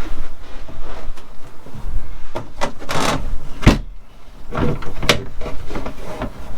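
A run of knocks and clunks from work on a newly fitted boat deck hatch being screwed down, the loudest about three and a half seconds in.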